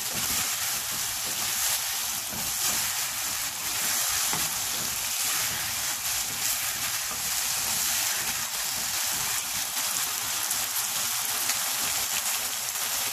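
Chicken strips, green capsicum and ginger sizzling steadily in sauce in a non-stick wok over medium heat, with a spatula stirring through them.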